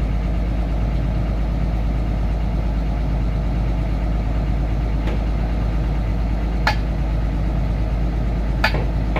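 Komatsu excavator's diesel engine idling steadily, with three sharp clicks in the second half.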